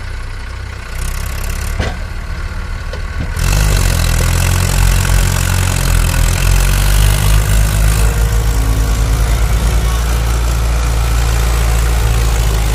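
Mahindra Arjun Ultra 555 tractor's four-cylinder diesel engine working hard as it drags a loaded soil trailer out of soft mud. It gets much louder about three and a half seconds in, then stays loud with a steady pulsing throb.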